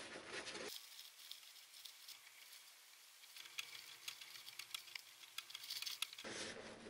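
Faint rustling and small scattered ticks of hand sewing: a needle and thread being pulled through the fabric of a bag.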